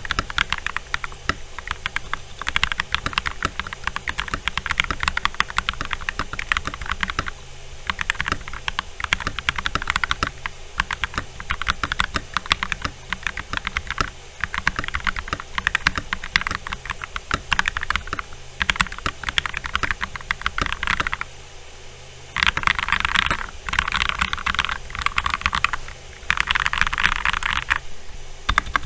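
Typing on a custom mechanical keyboard fitted with C3 Tangerine linear switches, lubed with Krytox 205g0 and filmed: a steady stream of key presses. There are a few very fast flurries of keystrokes near the end.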